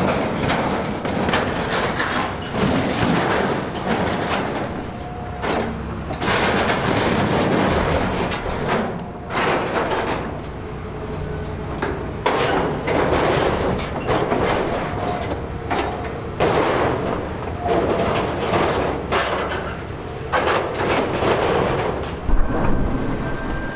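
Demolition excavator grapple tearing and crumpling corrugated sheet-metal cladding: irregular bursts of scraping, clattering and crashing metal over a running diesel engine, with a sharp bang near the end.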